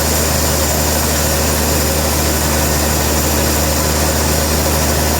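Sawmill machinery running steadily: an unchanging engine drone with a strong low hum and a faint steady whine above it.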